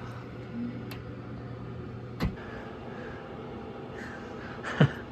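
Three sharp knocks or cracks, the last and loudest near the end, over a steady low hum.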